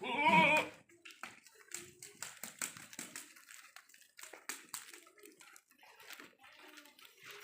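A goat bleats once, a short wavering call at the very start. Scattered clicks and rustling follow.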